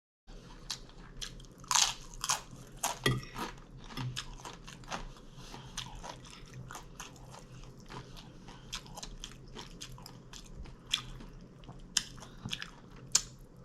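A person chewing mouthfuls of taco salad close to the microphone, with irregular crunching and wet mouth clicks.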